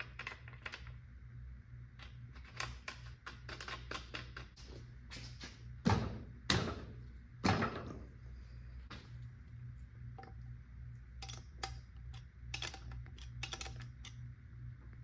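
Small metal parts and hand tools clicking and clattering as they are handled, with three louder knocks about six to seven and a half seconds in, over a low steady hum.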